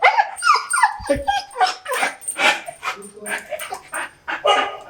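Excited dog whining and yipping, with falling whines near the start and a quick run of short yelps.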